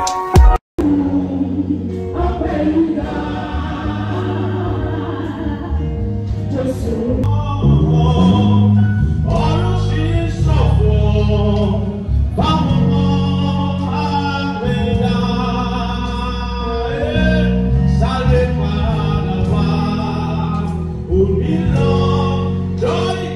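Gospel music in church: a choir and congregation singing over steady instrumental accompaniment. It begins just after a brief gap near the start.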